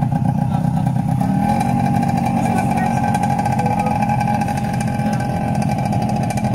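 Small motorcycle engines idling steadily, with a slight rise in engine pitch about a second and a half in.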